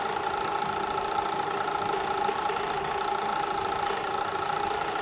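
Steady motor hum with several constant whining tones from the magnetic stirrer of a digital ring-and-ball softening point apparatus, running under a heated water bath.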